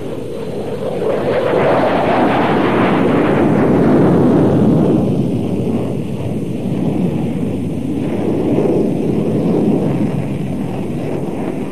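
Jet noise from a fighter aircraft in display flight: a broad rushing sound that swells over the first few seconds, then loses its higher part about five seconds in, leaving a lower rumble.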